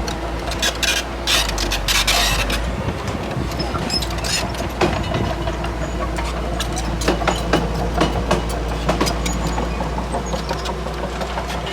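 Crawler bulldozer's diesel engine running steadily, with frequent sharp clanks and clicks throughout and a noisier scraping stretch about a second in.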